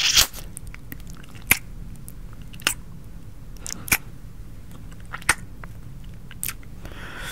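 Mouth chewing a gummy candy, with a sharp wet chew about every second and a quarter.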